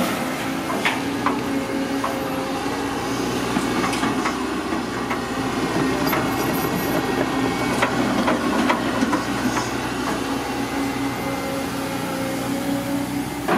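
Tracked hydraulic excavator's diesel engine running steadily, with a few short clicks and knocks scattered through.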